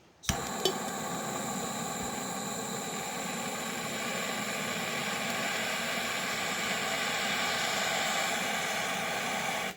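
Jet torch lighter clicking alight, then its jet flame hissing steadily for about nine seconds before it is shut off and the sound stops abruptly.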